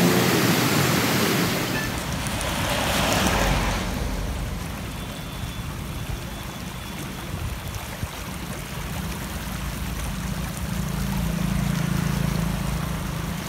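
Rainwater floodwater rushing: a loud, full rush for the first few seconds, then a quieter, steady flow of muddy runoff down a roadside ditch.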